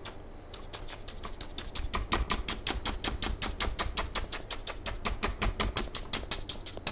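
A 2.5-inch paint brush being tapped rapidly against a stretched canvas on an easel, laying in tree foliage. It makes a fast, even patter of dry taps, about six a second, starting about half a second in.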